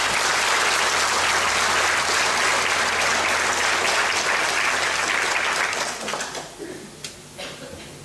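Audience applauding, a dense clapping that holds steady and then dies away about six seconds in.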